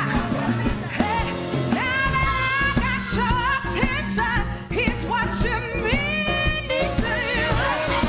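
A woman singing a blues-style show tune solo over a band with a steady beat, with long held notes that waver in vibrato and slide up into pitch.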